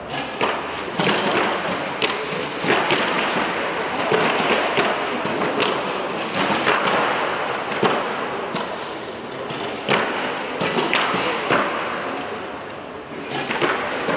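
Recurve bows being shot along a shooting line: irregular sharp snaps of bowstrings and thuds of arrows striking target bosses, a dozen or more, some close together, over a steady background din.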